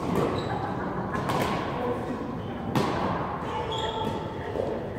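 Badminton hall ambience: a few sharp racket-on-shuttlecock smacks from play on nearby courts ring in the large hall, over a murmur of distant voices and a couple of short high squeaks typical of court shoes on the floor.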